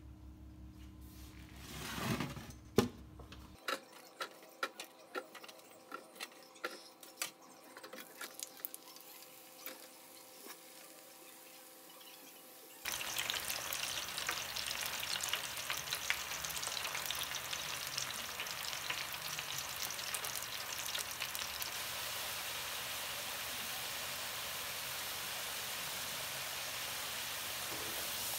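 A string of light clicks and knocks, then about halfway through a sudden change to steady sizzling: frozen cut potato fries bubbling in hot oil in a deep fryer's wire basket.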